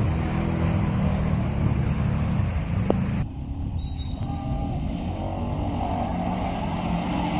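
Off-road vehicle engines running and revving, their pitch rising and falling. The sound changes abruptly about three seconds in.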